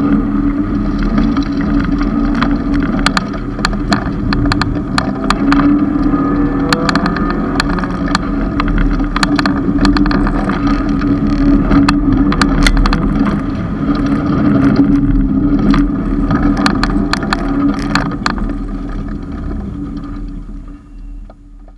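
Cabin sound of a 1991 Honda CRX Si's 1.6-litre four-cylinder engine being driven hard on an autocross course, revving up and down through the turns, with many sharp clicks and rattles. Near the end the engine noise dies down as the car slows at the finish.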